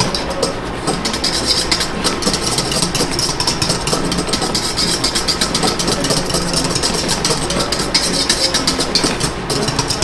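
Metal wire whisk beating rapidly against the sides and bottom of a stainless steel bowl: a fast, steady run of scraping, clinking strokes. The bowl holds an egg custard thickening over simmering water.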